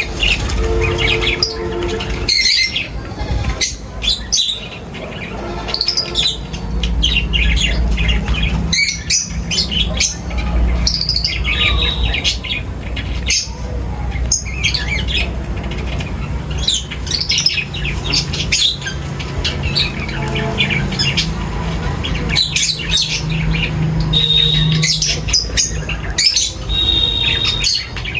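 A flock of birds chirping and squawking, with many short, sharp calls overlapping throughout, over a steady low rumble.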